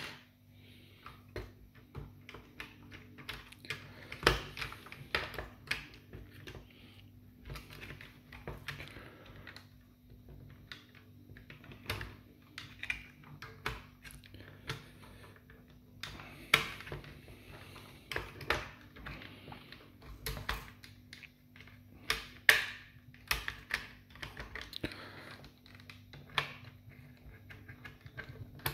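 Hard plastic parts of a Nerf Rival Roundhouse blaster being handled and fitted together by hand: irregular clicks, taps and light knocks.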